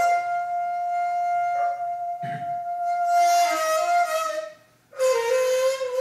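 Daegeum, the large Korean bamboo transverse flute, playing a long held note that bends downward about four seconds in. After a brief pause for breath it moves to a lower note with a wavering vibrato.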